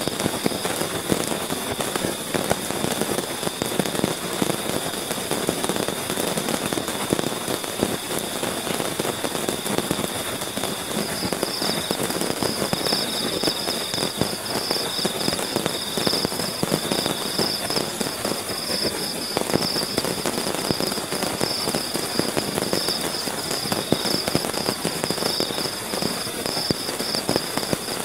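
Heavy rain falling on a tent and tarp, a dense, steady crackle of drops hitting the fabric. A steady high trill of insects joins in and grows stronger about a third of the way through.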